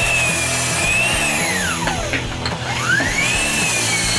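Metabo KGS18 LTX 216 18V cordless miter saw at work on 2x4s. Its motor whine sits high, falls away about two seconds in as the blade winds down, then climbs again as it spins up for the next cut. Background music plays throughout.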